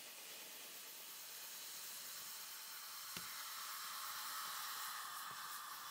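Hexamine dinitrate and copper sulfate mixture burning energetically in a small foil cup, giving a faint, steady hiss. A single small click comes about three seconds in.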